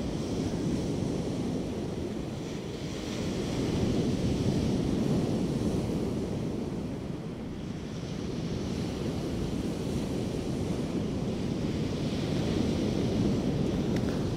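Sea surf breaking and washing up a sandy beach, swelling and easing in slow surges, with wind rumbling on the microphone.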